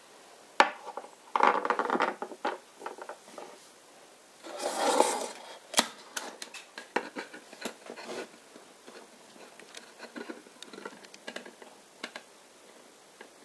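Hands handling a small plastic toy figure and a wooden box on a tabletop. There is a sharp click about half a second in, two short bursts of scraping and rubbing around two and five seconds in, and then scattered light taps and clicks.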